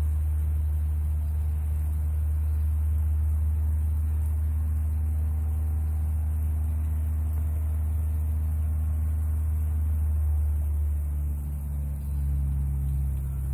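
Steady low hum of a running motor, with a set of fainter higher tones above it that change pitch about eleven seconds in.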